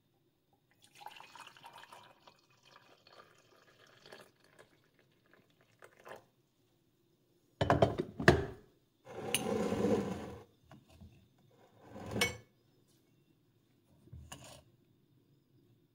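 Liquid poured into a ceramic mug: a faint thin pour from a stainless steel jug, then a louder pour about halfway through. Knocks and clinks of glass and crockery come just before that pour and twice more near the end.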